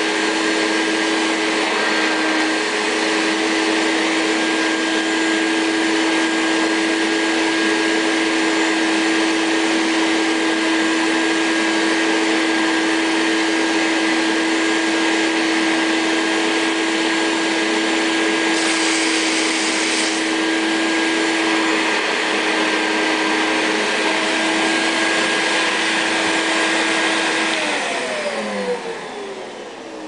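A 1983 Hoover Compact S3196 vacuum cleaner's 700-watt motor running steadily, with a brief sharper hiss of air about two-thirds of the way through. Near the end it is switched off, and the motor's whine falls in pitch as it winds down.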